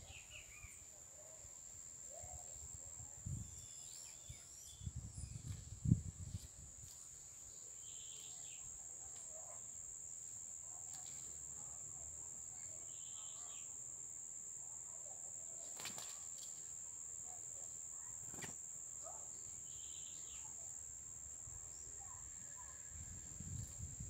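An insect trilling steadily at one high pitch, with short bird chirps every few seconds. A few low rumbles come in the first six seconds, and two sharp clicks come near the end.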